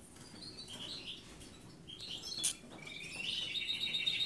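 Cage finches chirping in short, scattered calls, with one sharp click about two and a half seconds in, then a rapid twittering trill that starts near the end.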